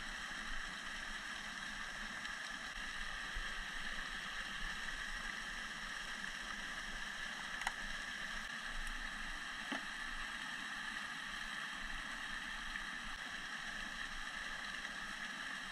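Steady flowing-water noise, with a faint click about eight seconds in and another about ten seconds in.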